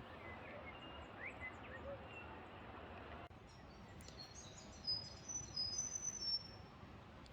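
Small birds calling over a steady outdoor hiss. There are a few short chirps in the first half, then a quick run of high, thin notes from about four and a half seconds in.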